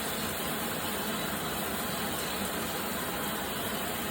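Water spraying steadily from a running shower head, an even rushing noise with no change in level.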